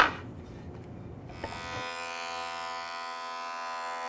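Benchtop jointer's knives cutting the face of a board in one pass: a knock at the very start, then from about a second and a half in a steady high whine with hiss as the board feeds over the cutterhead. The cut runs without a break, the sign that the cupped face is now flattened across its full width.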